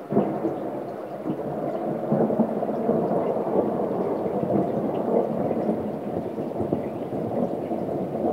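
A thunderclap from a nearby lightning strike breaks in suddenly, then rolls on as a loud, long rumble that eases only slightly near the end.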